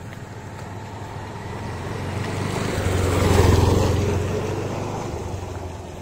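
A road vehicle passing by: its engine and tyre noise build up, are loudest about three and a half seconds in, then fade away.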